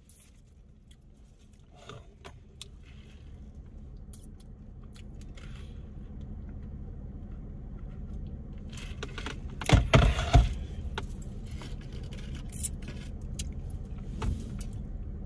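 Low rumble in a car cabin that slowly grows louder. About ten seconds in there is a loud, short clatter in two quick hits, with jangling, from handling things in the car.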